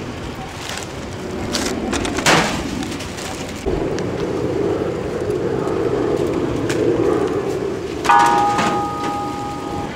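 Roadside traffic noise with a car passing, a sharp knock about two seconds in, and a steady ringing tone of several pitches starting about eight seconds in and lasting nearly two seconds.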